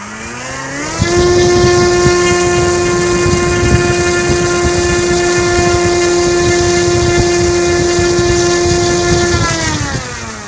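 Hobby People G46 electric motor spinning a model airplane propeller at full throttle: a whine that rises in pitch over the first second, holds steady at about 10,500 RPM while drawing about 55 amps and 1,000 watts, within the motor's spec, then falls in pitch as it is throttled back near the end.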